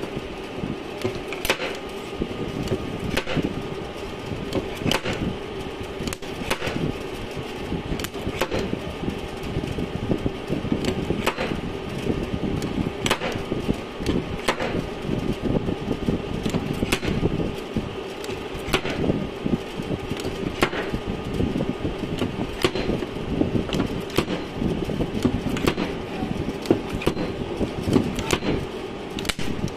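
Slide hammer of a dent puller knocking against the dented rear quarter panel of a Toyota Fortuner, a sharp knock about every two seconds, over a steady hum.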